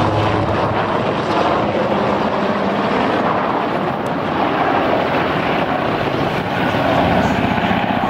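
AS332 M1 Super Puma helicopter flying overhead: a steady, loud rush with the fast, even chop of its rotor blades.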